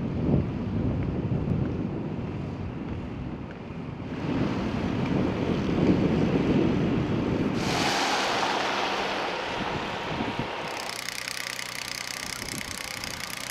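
Low running of utility truck engines mixed with wind buffeting the microphone. The sound changes abruptly a few times, and near the end there is a steadier engine hum.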